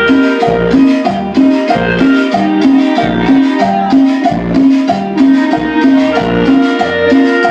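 Cumbia dance music playing loudly, with a steady bass beat of about two notes a second under percussion and a melody line.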